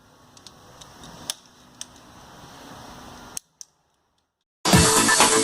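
A few sharp metallic clicks from a click-type torque wrench tightening cylinder head bolts to 20 Nm, over faint workshop hiss. After a brief silence, loud electronic dance music starts near the end and is the loudest sound.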